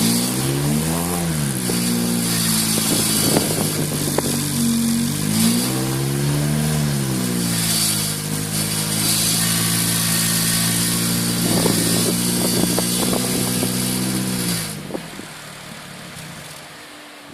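Car engine idling through a Pumaspeed aftermarket muffler, blipped twice, with bursts of crackling mixed in; the owner says this muffler makes a strange noise. The engine cuts off near the end, leaving a quieter hiss.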